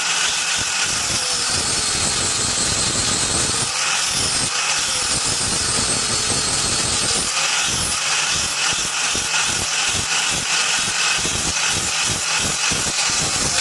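Electric grinder running steadily against steel, a continuous harsh grinding noise with a high whine that wavers in pitch.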